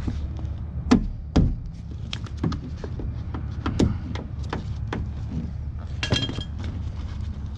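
Sharp plastic clicks and knocks as a wiring-harness push-pin clip is worked free of a van door's inner metal panel. The two loudest knocks come about a second in, followed by lighter taps and rattles of the harness against the door.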